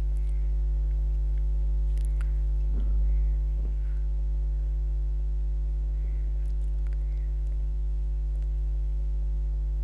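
Steady electrical mains hum with a stack of overtones, loud and unchanging, with a few faint clicks.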